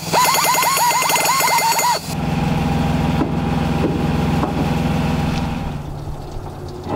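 A handheld tool with a bit is enlarging bolt holes in a steel engine-mount bracket, its whine dipping and recovering about six times a second as the bit bites. About two seconds in, this cuts to a lower, steady power-tool hum with a fast rattle under the truck, which fades out near the end.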